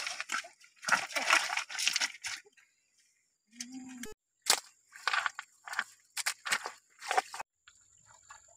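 Riverbed stones and gravel crunching and knocking as hands grab and dig among them at the edge of a shallow pool. Two longer scraping stretches come at the start, then a run of short, sharp knocks.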